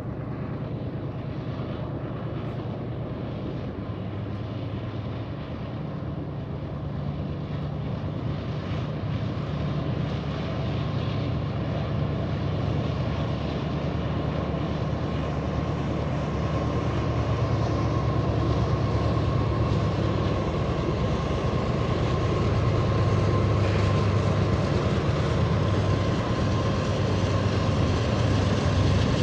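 Norfolk Southern freight train's diesel locomotives heard across open water: a low, steady rumble that grows gradually louder, with a faint steady high tone joining in partway through.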